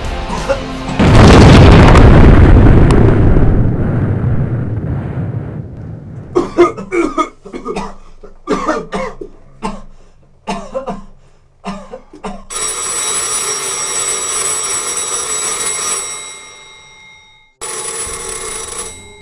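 An artillery shell bursts close by about a second in, a hit on the concrete bunker that the men take for a direct hit, and its rumble dies away over several seconds. Men then cough again and again, and a field telephone's bell rings for about three seconds, stops, and rings again near the end.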